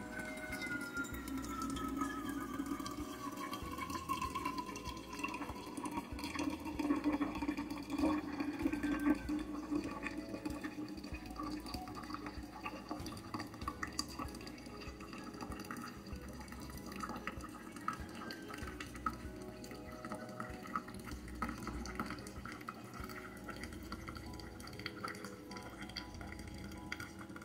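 Hot water poured from a small pot onto ground coffee in a paper filter set in a plastic pour-over holder, then coffee trickling and dripping through the filter into the container below.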